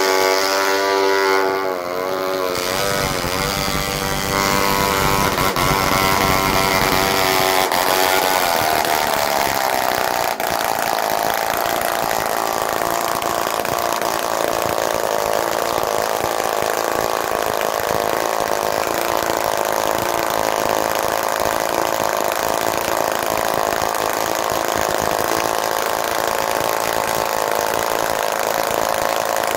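A 1946 Fleetwind .60 spark-ignition model engine runs on a test stand during running-in of the restored engine. Its speed wavers and shifts over the first several seconds, then it holds a steady note.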